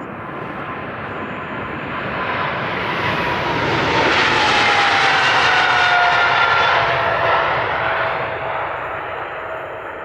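Boeing 777-300ER's twin GE90 turbofans at takeoff power passing by: the jet noise swells to its loudest about halfway through, then fades, and the engine whine tones drop in pitch as the aircraft goes past.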